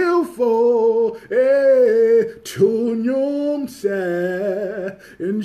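Unaccompanied worship singing by a single voice, holding long notes in phrases of about a second with short breaks between them.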